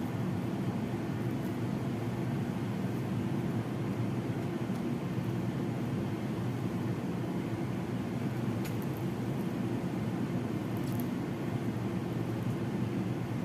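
Steady low hum of a running fan-type appliance, even in level throughout, with a couple of faint clicks in the second half, such as a spatula knocking the plate.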